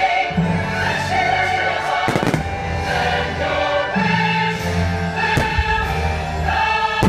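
Loud orchestral show music with a choir singing sustained chords, with several sharp firework bangs from shells bursting overhead.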